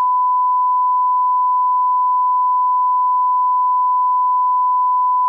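A loud electronic beep tone added in editing: one pure, unchanging pitch held without a break.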